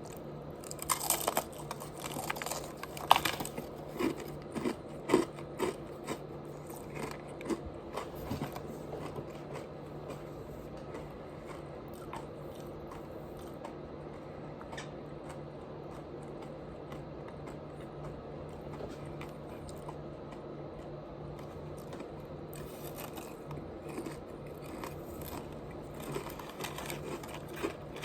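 Close-miked eating of crunchy fried chicken: a run of crisp bites and chewing in the first eight seconds, then a pause, then a few softer bites near the end. A steady low hum runs underneath.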